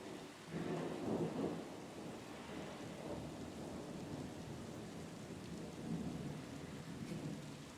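Steady rain with a rumble of thunder that rolls in about half a second in, is loudest around a second in, and swells again near six seconds.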